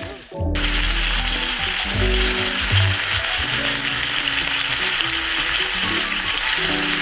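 Chicken breasts frying in peanut oil in a nonstick pan, a steady sizzle that cuts out briefly just after the start.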